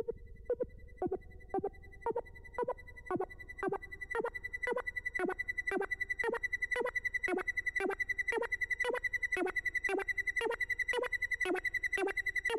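ARP Odyssey analogue synthesizer playing a repeating sequence of short pulsing notes, each with a quick downward sweep, over a steady high tone. The notes come about twice a second at first and grow faster and denser from about four seconds in, as its sliders are adjusted.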